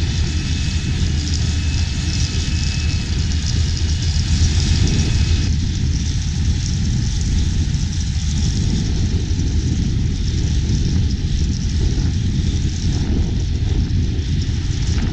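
Large engine running steadily with a deep rumble, its sound shifting slightly about five and a half seconds in.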